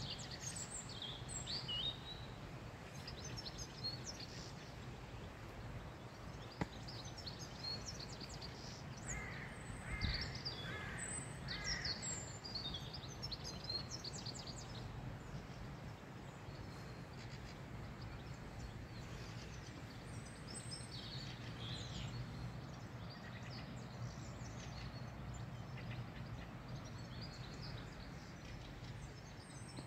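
Outdoor town ambience: small birds chirping and twittering over a steady low background rumble, with a run of about four harsh calls, a crow cawing, around ten seconds in.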